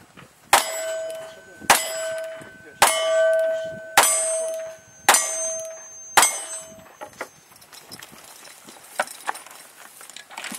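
Six single-action revolver shots about a second apart, each followed by the ringing clang of a hit steel target that hangs on until the next shot.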